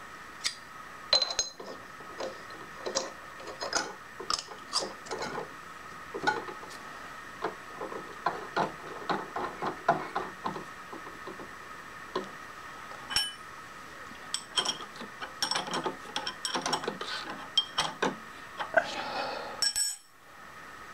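Light metal clicks and clinks from a steel end mill and tooling being handled and fitted into a vertical milling machine's collet, over a steady faint hum. A short rattle comes near the end.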